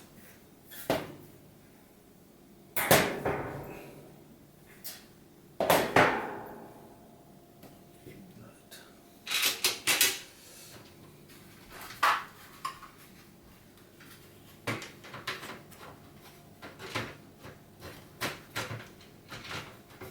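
Scattered knocks and clicks of a dishwasher's front panel parts being handled and fitted back together, with two louder knocks early on and a run of small quick clicks in the last few seconds.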